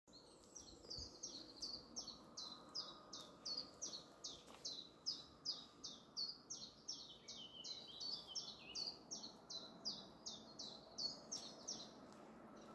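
A small songbird calling a long, regular run of short, high, falling chirps, about two a second, over faint background hiss.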